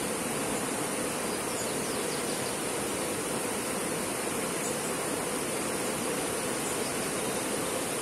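Shallow rocky river rushing over stones and small rapids: a steady, even rush of water.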